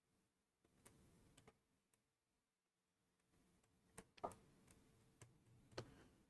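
Near silence with a few faint, scattered clicks at a computer as it is worked, the loudest a little after four seconds and near six seconds, over a faint steady hum.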